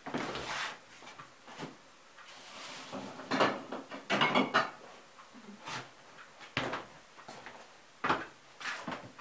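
Kitchen clatter from things being handled: a string of short, sharp knocks and clunks, about ten spread over nine seconds, with quiet gaps between.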